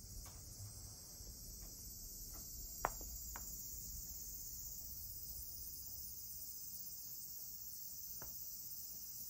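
Faint, steady high-pitched chorus of insects chirring, with two sharp clicks about three seconds in and a softer click near the end.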